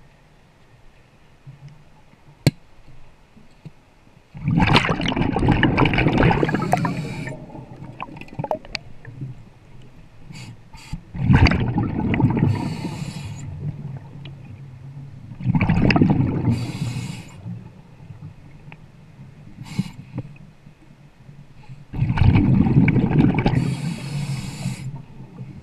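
Scuba diver breathing through a regulator underwater: four loud bubbling exhalations a few seconds apart, each trailing off in a hiss of air.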